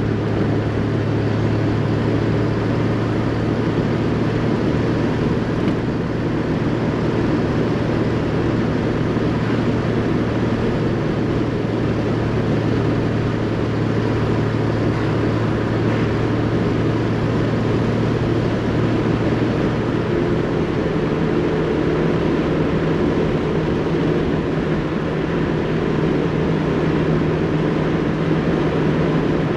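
1968 Triumph GT6's straight-six engine running under way with road noise, a steady drone that steps up to a higher pitch about twenty seconds in.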